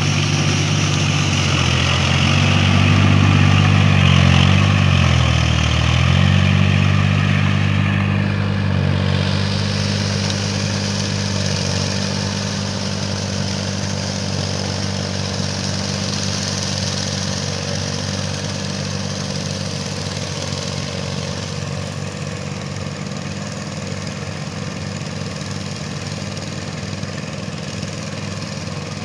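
Kubota L4018 tractor's diesel engine running under load as it pulls a rotary tiller, its pitch dipping and recovering a few seconds in, then growing gradually fainter as the tractor moves away.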